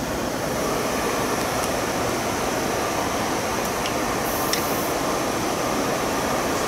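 Steady, even rushing background noise like ventilation or air conditioning, with a few faint light clicks.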